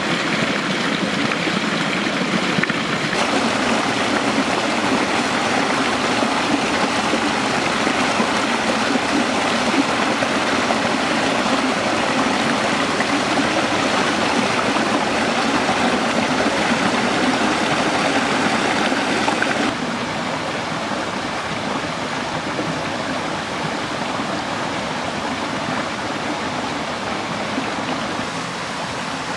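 Steady rushing of running water, like a stream, that drops a little in level about two-thirds of the way through.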